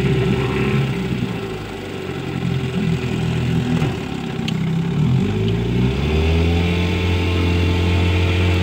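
1964 Evinrude Fisherman 5.5 hp two-stroke twin outboard motor running. Its speed wavers at first, then about six seconds in it picks up and settles into a louder, steady run.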